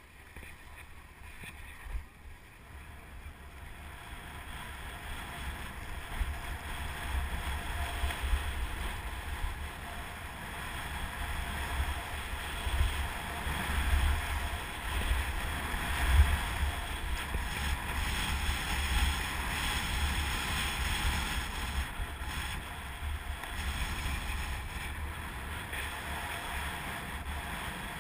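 Wind buffeting a GoPro Hero 2's microphone, over the hiss and scrape of skis sliding on packed, tracked piste snow. It grows louder over the first dozen seconds and then holds steady, with a louder gust or scrape about sixteen seconds in.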